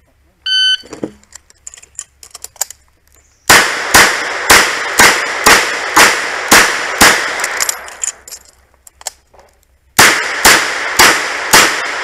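A shot timer's start beep, then a revolver firing a string of shots about half a second apart. After a pause of about two seconds, a second fast string of shots follows.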